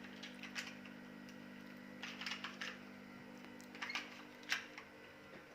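A 2x2 Rubik's cube being scrambled by hand: faint, irregular plastic clicks and clacks as its layers are turned, in clusters, the loudest about four and a half seconds in, over a low steady hum.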